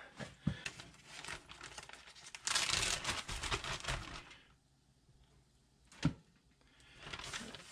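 Crinkling of a plastic zip-top bag being handled: scattered crackles at first, then about two seconds of dense crinkling in the middle. A single sharp knock follows near the end.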